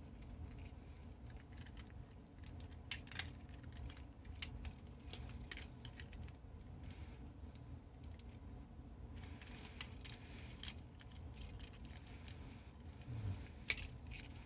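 Plastic Transformers Animated Cybertronian-mode Ratchet figure being transformed by hand: faint, irregular clicks and rattles of its plastic joints and panels, with a couple of sharper clicks about three seconds in and near the end.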